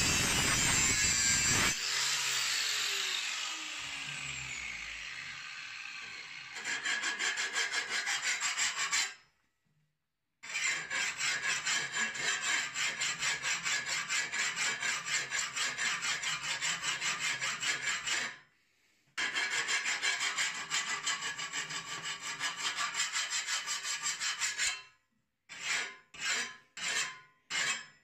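Angle grinder grinding the steel edge of a lawn mower blade, switched off about two seconds in and winding down with a falling whine. Then a flat hand file rasping along the blade's cutting edge to sharpen it, in long runs broken by two short pauses, with slower separate strokes near the end.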